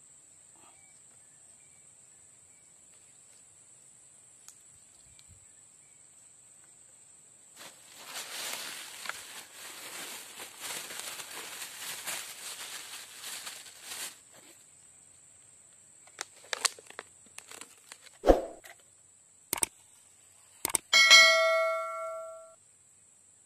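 A steady high insect drone throughout, with a stretch of rustling handling noise in the middle and a sharp thump later. Near the end come a few clicks and a loud ringing bell 'ding', the sound effect of a YouTube subscribe-button animation.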